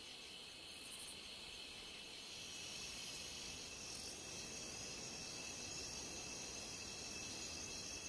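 Rainforest insect chorus: several steady high-pitched drones at different pitches, with a higher one joining about two seconds in and the whole growing slightly louder.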